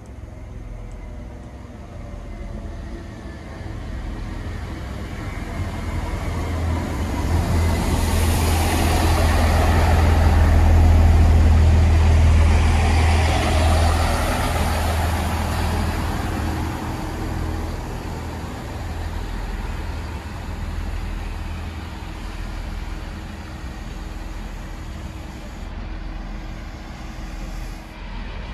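Diesel train running through the station. Its engine hum and wheel noise grow louder to a peak about a third of the way through, then slowly die away.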